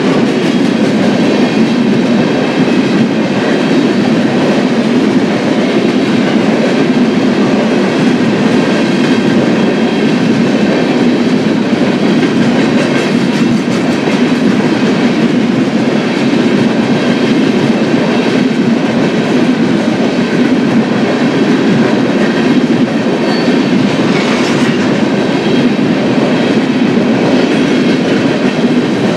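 Union Pacific freight train's cars rolling past at close range, a loud, steady noise of steel wheels running on the rails.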